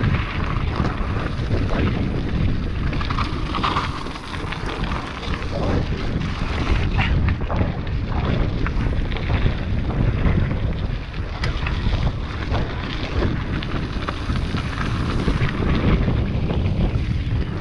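Wind buffeting the microphone over the rumble of mountain bike tyres on a stony, gravelly trail, with frequent sharp rattles and knocks from the bike jolting over rocks.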